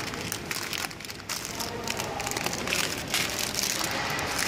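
Plastic film packs of dried noodles crinkling and rustling as they are handled, in irregular crackles over a steady background noise.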